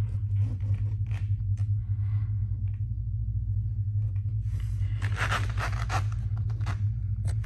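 Close rustling and scraping, heaviest about five to six and a half seconds in, with scattered light clicks, over a steady low hum.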